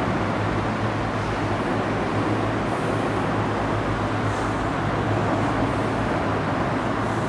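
Steady room noise: a constant low hum with an even hiss underneath, unchanging throughout.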